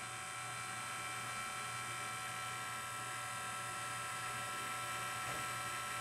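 LG system air conditioner running: a steady electrical and mechanical hum with a thin high whine held through it, unchanging throughout.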